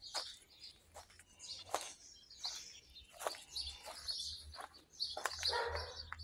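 Small birds chirping repeatedly, with a few sharp clicks in between.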